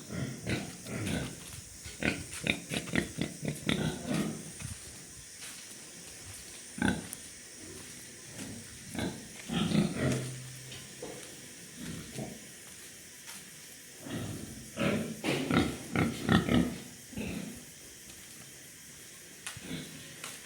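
Pigs grunting in irregular clusters of short calls, with quieter pauses between.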